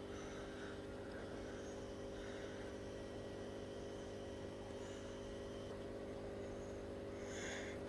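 Faint, steady mains hum: a low electrical buzz of several even tones that holds unchanged throughout.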